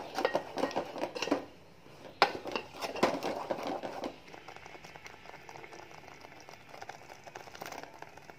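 A spoon scraping and knocking against the sides of a metal cooking pot as a thick masala is stirred, in two spells with a sharp knock about two seconds in. The scraping stops about four seconds in, leaving only a faint steady background.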